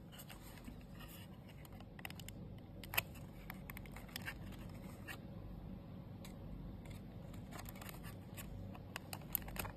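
Faint handling noise of a small plastic Wi-Fi security camera: light clicks and scrapes as fingers turn its lens dome. One sharper click comes about three seconds in, and a few more near the end.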